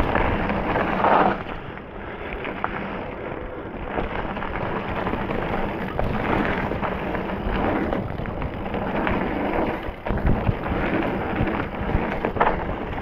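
Specialized Stumpjumper mountain bike ridden over a rough dirt trail: continuous tyre and drivetrain noise with knocks and rattles over bumps, and wind buffeting the microphone.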